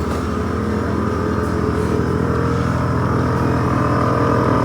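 1978 Pontiac Trans Am's engine running steadily, growing slightly louder; the owner thinks there is an exhaust leak at the manifold.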